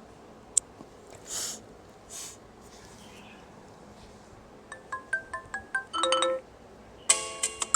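Asus ZenFone 2 Laser's speaker playing its built-in ringtones: a short tune of quick chiming notes stops about six and a half seconds in, and a louder, denser tune starts about a second later. Before them come a single sharp click and two brief hisses.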